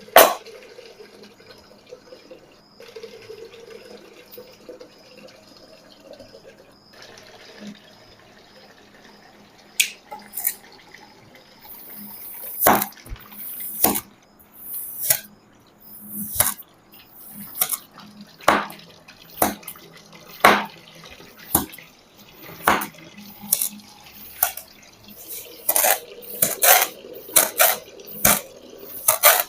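Metal melon baller scooping and cutting kinetic sand: a sharp click at the start, quiet soft scraping for a while, then crisp gritty scoops about once a second through the second half.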